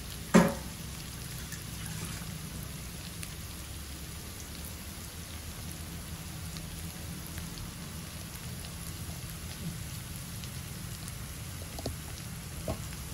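Sliced onions, curry leaves and spice mix frying in hot oil in a wok: a steady sizzle. A sharp knock comes about half a second in, and a couple of light clicks come near the end.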